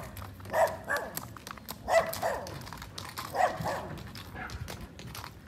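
A dog barking: three pairs of short barks, over the faint clip-clop of a horse's hooves walking on gravel.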